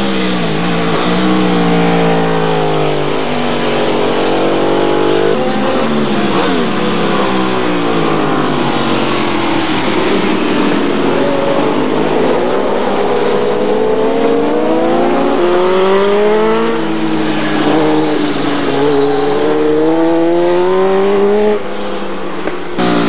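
Superbike racing motorcycle engines revving hard as the bikes pass, their pitch climbing and falling again and again.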